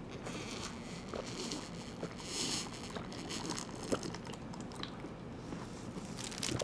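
Faint gulping and mouth sounds of someone drinking juice straight from a small carton, with a few soft clicks.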